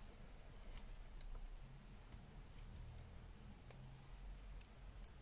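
Faint, scattered clicks of metal knitting needles touching as stitches are bound off, over quiet room tone.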